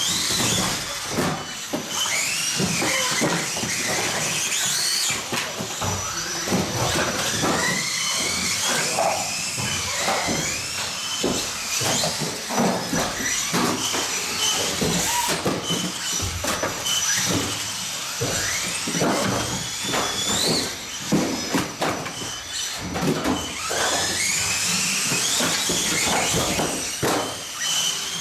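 Several small-scale electric RC off-road cars racing, their motors whining up and falling back again and again as they accelerate and brake, with frequent knocks and clatter from the cars hitting and landing.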